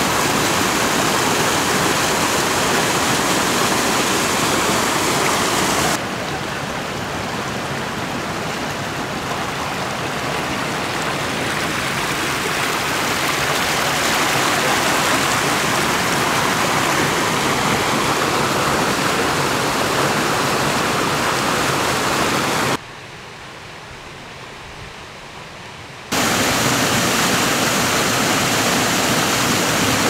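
Waterfall on a mountain stream: water pouring steadily, an even rushing noise. The level jumps suddenly a few times, dropping sharply for about three seconds near the end before coming back up.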